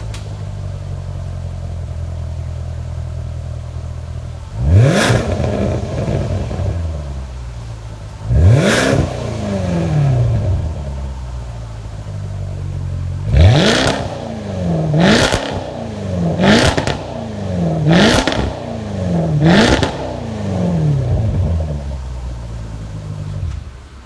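Range Rover SVAutobiography engine breathing through an Fi Exhaust catless downpipe and valved catback system with quad tips: idling, then two slower revs that rise and fall back, then five quick throttle blips in a row, each dropping back to idle before it settles again.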